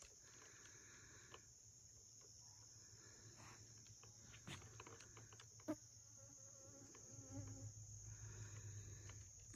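Faint, steady high-pitched chorus of insects such as crickets, with a few soft clicks.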